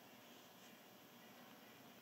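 Near silence: a faint, steady background hiss.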